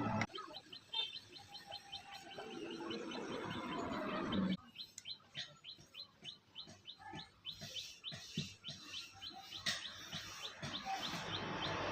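A bird chirping in a fast, even series of short high chirps, about three or four a second, with soft scattered knocks in the background.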